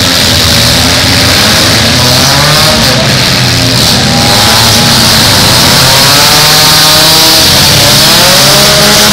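Several demolition-derby cars' engines revving hard together, their pitches rising and falling as they overlap, very loud, with a steady hiss over them.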